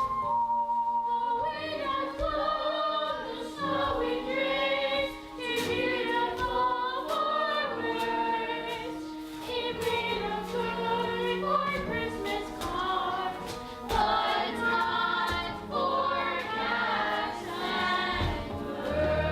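Music: a choir singing a melody, several voices together.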